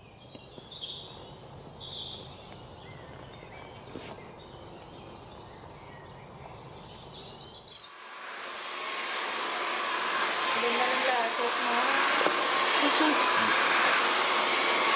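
Birds chirping and calling in short scattered phrases. About eight seconds in this gives way to the steady rush of a hair dryer blowing, which swells over a couple of seconds and then holds.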